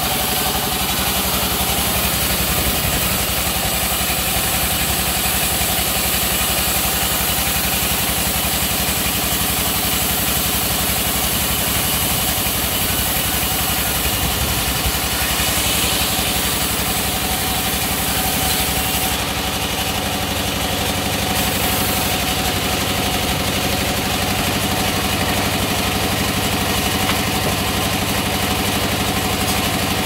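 Band sawmill running steadily, its blade cutting lengthwise through a long teak plank: a continuous machine drone with a steady hiss over it.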